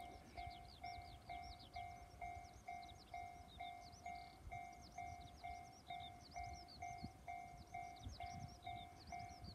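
Japanese level-crossing warning bell ringing steadily at about two strokes a second, each stroke a clear electronic tone. High chirping calls sound throughout.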